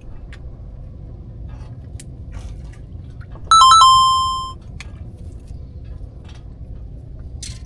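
A small metal bell chime, struck three times in quick succession about halfway through, then ringing clear and high and fading over about a second. Underneath is a low steady background with scattered faint clicks.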